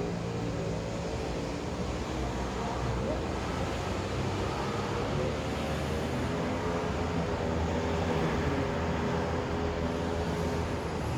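Suzuki DF125's single-cylinder four-stroke engine idling steadily.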